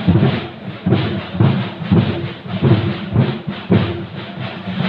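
Loud drumming with a steady beat of about two strokes a second over a dense, rumbling mass of percussion.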